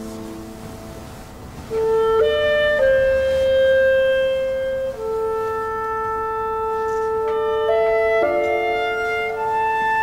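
Slow background score with a woodwind melody, clarinet-like, playing long held notes over a soft accompaniment; it dips for the first second or so, then comes back louder about two seconds in.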